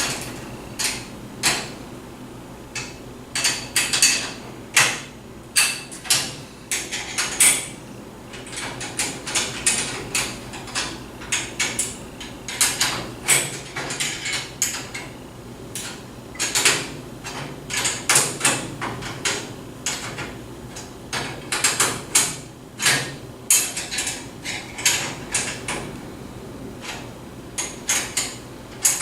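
Nuts being tightened onto the bolts of a treestand seat with a hand wrench: a long run of irregular metallic clicks and clanks, a few a second, as the tool works and knocks against the metal frame.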